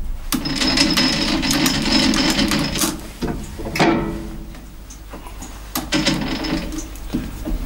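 Metal handling and adjustment noises from a lathe's quick-change tool post and knurling tool holder as the knurling tool is set to centre height. A few seconds of continuous mechanical rattling and scraping come first, then shorter clatters in the middle and again near the end.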